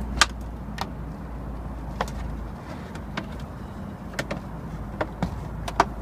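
Scattered sharp plastic clicks and taps, about ten at irregular intervals, from a flat screwdriver prying plastic push-pin clips out of a car's engine undercover, over a low steady rumble.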